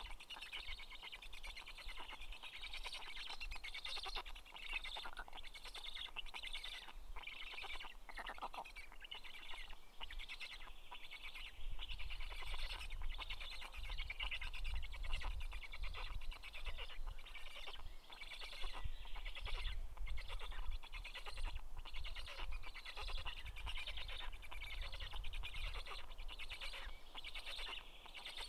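Birds chirping steadily, a dense run of high calls through the whole stretch, with a low rumble joining about twelve seconds in.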